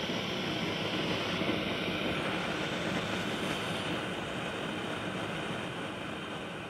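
Homemade alcohol-burner blowtorch, a copy of an 1890s Japanese design, burning with a steady rushing noise from its flame that eases slightly toward the end.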